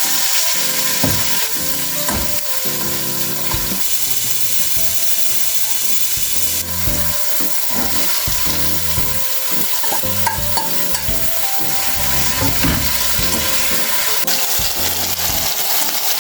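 Steady sizzling and frying hiss from food in a hot pan being stirred.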